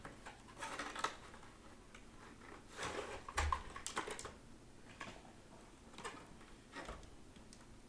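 Scattered light clicks, rustles and a couple of soft thumps of a model and its packaging being handled and put back into a box.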